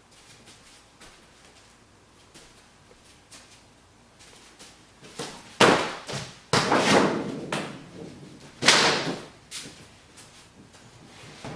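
Three loud crashing thuds, the first two about a second apart and the third two seconds later, each dying away quickly.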